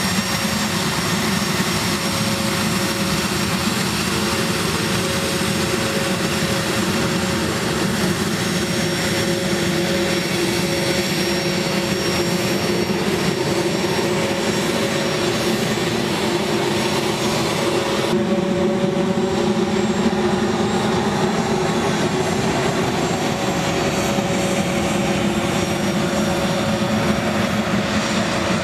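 Twin General Electric TF34 turbofan engines of an A-10 Thunderbolt II running steadily as the jet taxis, a constant jet whine with a few held tones. About two-thirds of the way through, the high hiss drops away suddenly while the lower engine tones carry on.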